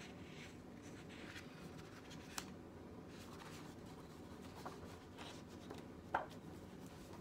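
Faint rustling of the paper pages of a spiral-bound coloring book as it is handled and its pages are turned, with a sharp click about two and a half seconds in and a slightly louder rustle about six seconds in.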